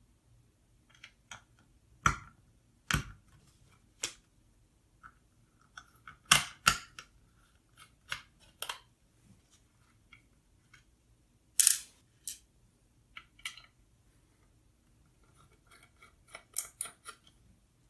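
Scattered small clicks and taps of a screwdriver and screws as two screws are taken out and a computer's circuit board and case are handled. The sharpest clicks come about two, three, six and twelve seconds in.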